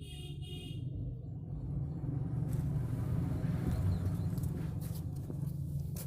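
A passing motor vehicle: a low rumble that swells over a few seconds and then eases off.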